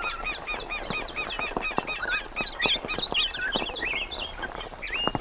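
Morning chorus of several wild birds: many overlapping short chirps and slurred whistles, dense throughout, with a few longer whistled notes near the end. Scattered small ticks sound underneath.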